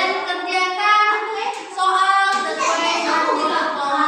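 Children's voices singing together.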